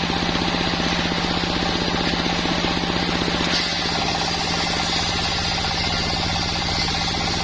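Sawmill machine running steadily, its motor giving a fast, even pulse under a constant hum; about halfway through, the sound shifts slightly in character.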